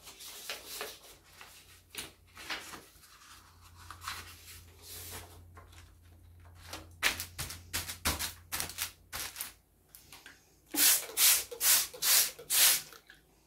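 Paper rustling and sliding as a sheet of thick paper is laid into a metal baking tray, then near the end five quick spritzes of a hand trigger spray bottle, about two a second, wetting the paper with dye.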